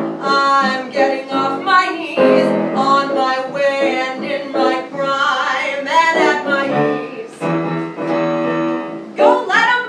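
A woman singing a Broadway show tune with piano accompaniment, holding and bending sung notes throughout.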